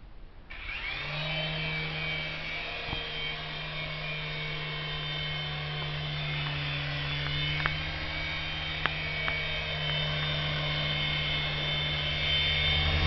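Syma S107 toy helicopter's small electric motors and coaxial rotors starting up about half a second in, then running steadily as it hovers: a high motor whine over a low rotor hum. A few faint clicks midway, and the sound grows a little louder near the end.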